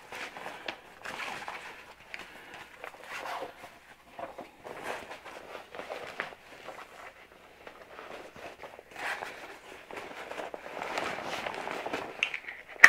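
Rustling and scraping of chest-wader fabric as a waist belt is threaded through the belt slots, with one sharp click near the end as the belt buckle snaps shut.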